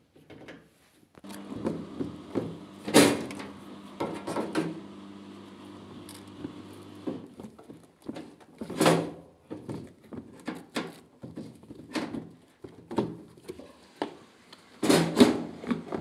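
Knocks and clatter of plastic and sheet-metal panels as a washing machine's top cover is unscrewed and lifted off, with the loudest knocks about three seconds in, near the middle and near the end. A steady low hum runs through the first half.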